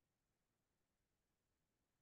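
Near silence: digital silence with only a faint noise floor.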